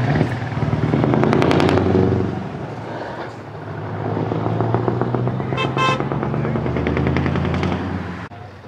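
Diesel semi truck's engine running hard as the truck pulls away, a loud exhaust drone that swells, eases off around three seconds in, then builds again. A brief horn toot sounds about six seconds in, and the engine sound cuts off abruptly near the end.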